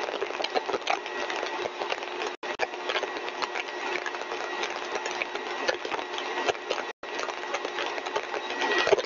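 Single-stage rotor-and-stator compressor rig running steadily at full design speed: a steady mechanical whir with a held tone and a crackling rattle. The sound cuts out briefly twice.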